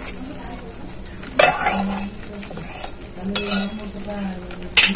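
Steel spatula scraping and stirring thick egg korma gravy around a metal kadai, in three scraping strokes about a second and a half apart, over the gravy's low sizzle.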